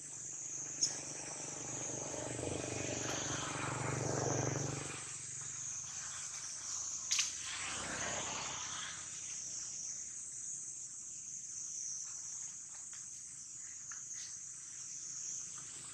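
Steady, high-pitched insect chorus droning on without a break. A broader rushing noise swells for a few seconds near the start and again just past the middle, and there are two short sharp clicks.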